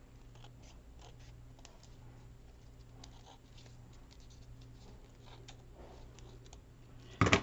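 Scissors snipping paper in a scatter of faint short cuts, trimming the edges of a page. A single loud knock near the end.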